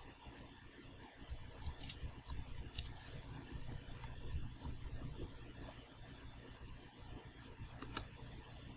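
Scattered light clicks and small taps, a cluster between about one and five seconds in and a pair near the end, over a faint low hum.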